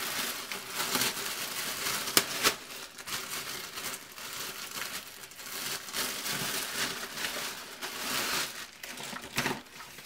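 Plastic mailer bag and wrapping crinkling and rustling as a dress is unpacked, with a sharp crackle about two seconds in.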